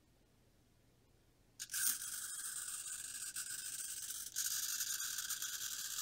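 SG90 micro servo's small motor and plastic gears whirring as the sweep sketch swings it back and forth, starting about a second and a half in, with a brief dip about three seconds later as it reverses direction.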